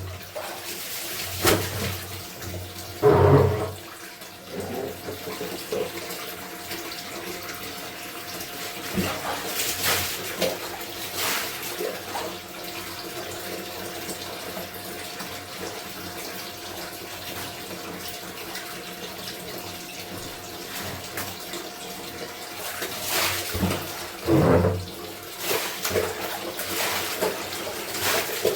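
Water running and splashing as clothes are washed by hand, with louder sloshes about three seconds in and again near the end.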